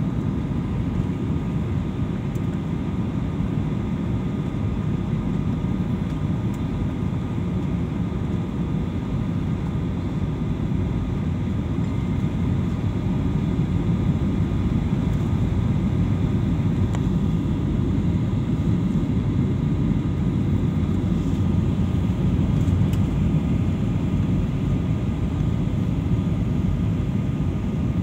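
Airliner cabin noise on the descent to landing: a steady low rumble of jet engines and airflow heard from a window seat, with a few faint steady tones above it. It grows slightly louder about halfway through.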